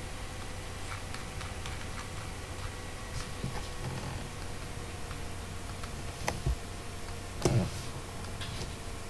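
Computer mouse clicking: a few faint clicks in the first four seconds, then sharper clicks about six seconds in and a louder one at about seven and a half seconds. A faint steady hum lies underneath.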